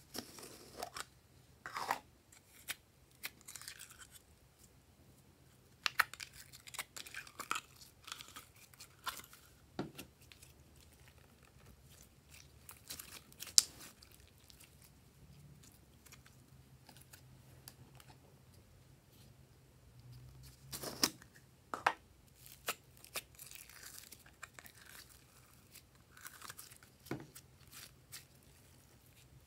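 Glossy slime being squeezed, stretched and pressed by hand: irregular sticky crackles, pops and tearing sounds as the slime pulls apart and folds.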